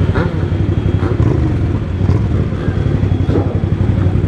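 Motorcycle engines running steadily at low revs, a low rumble with a fast, even pulse.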